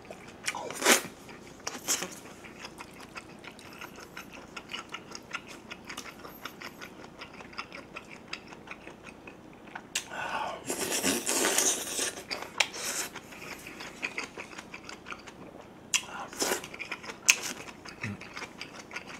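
Close-miked mouth sounds of eating: a steady run of small wet smacking clicks from chewing. About ten seconds in, a louder noisy slurp of about two seconds as a chopstick-load of sujebi dough and kimchi from the stew is sucked in, with a few sharper clicks now and then.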